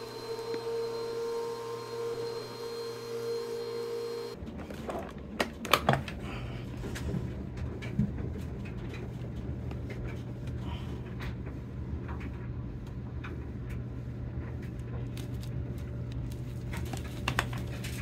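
Vacuum cleaner motor running with a steady whine that cuts off abruptly about four seconds in, leaving a low steady hum with scattered clicks and knocks, the loudest a few sharp knocks about a second and a half later.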